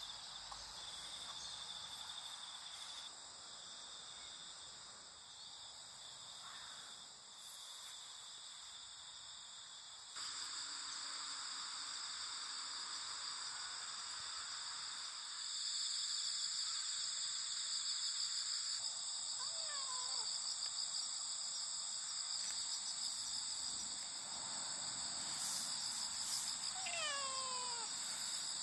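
Steady chorus of crickets and other insects trilling. Near the end a cat meows a few times in short falling calls.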